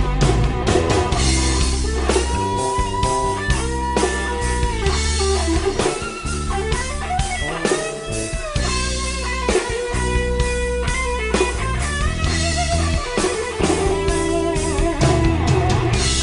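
Electric guitar solo improvised over a backing track with bass and drums: sustained single-note lines with pitch bends and slides.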